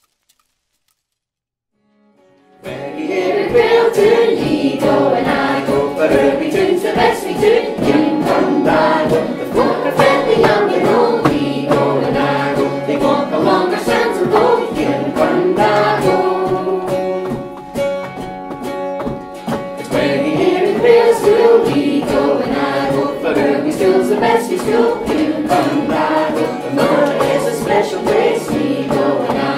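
Silence for about two and a half seconds, then music with several voices singing over instruments and a steady low note underneath.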